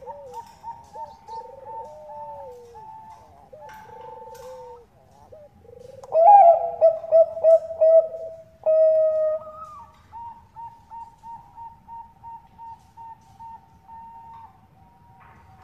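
Zebra doves of the Bangkok perkutut type cooing in rhythmic, staccato phrases, some overlapping. The loudest phrase comes about six seconds in, followed by a long string of short, even coos at about three a second.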